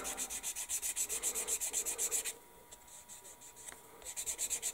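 Rapid back-and-forth hand-sanding of a plastic scale-model kit part, smoothing off the nub left where it was clipped from the sprue. The strokes run for about two seconds, pause, then start again near the end.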